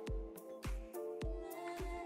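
Background music with a steady beat, about two beats a second, under a held melody.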